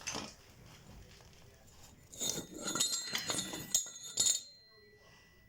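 Loose metal pieces clinking and rattling against each other in a cluster of sharp clicks, with a thin metallic ring, from about two seconds in; the sounds stop shortly after four seconds.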